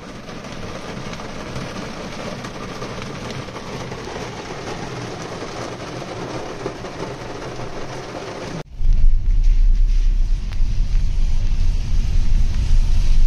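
Vehicle and road noise: a steady hiss for the first nine seconds, then, after a sudden cut, a louder low rumble of a vehicle on the move.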